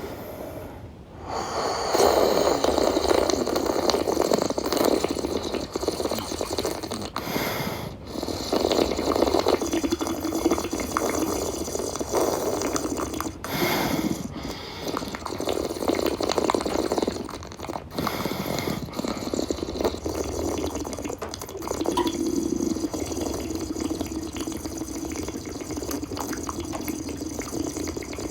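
Water running and splashing, as from a kitchen tap into a sink. It comes in several runs with short breaks between them.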